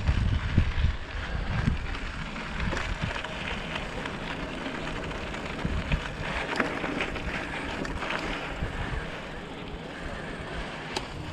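Bicycle tyres rolling over a dirt and gravel trail, with wind buffeting the microphone, heaviest in the first couple of seconds, and short knocks and rattles as the bike goes over bumps.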